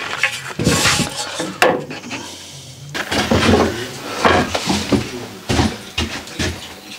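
Irregular clatter and knocks of tools and timber being handled and set down.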